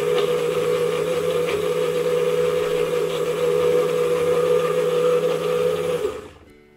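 Small personal blender, run by pressing its tall cup down, blending salmon with shallots, garlic and a little water to a smooth purée. The motor hums steadily, then stops suddenly about six seconds in, when the cup is let go.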